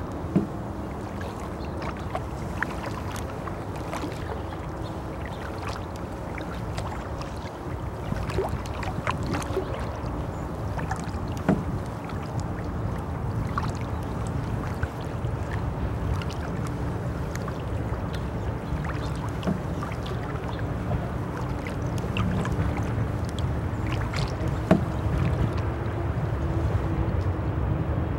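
Kayak paddling on calm water: paddle strokes with splashing and dripping, and a few sharp knocks, over a steady low rumble that grows louder near the end.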